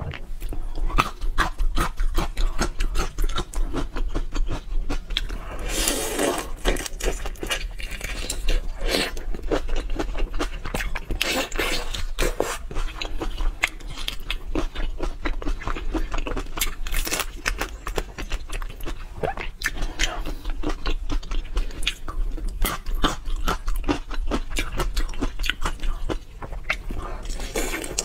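Close-miked chewing and biting into whole marinated shrimp, shells and all: a dense, continuous run of crunchy clicks, with louder bursts of crunching every few seconds.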